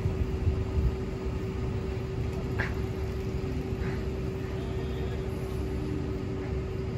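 Parked fire vehicles idling: a steady low rumble with a constant hum.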